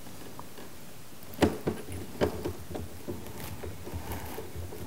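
Small screwdriver retightening the screws on an LCD projector's lamp module: a scattering of light clicks and taps, clearest from about a second and a half in.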